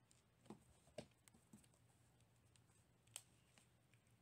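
Near silence broken by a few faint, short taps and rustles from a cat batting at a leather shoestring, the clearest about one second and three seconds in.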